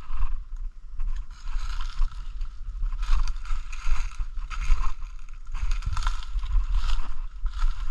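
Footsteps crunching through dry leaf litter at a slow walk, about one step a second, over a low rumble from the handheld camera.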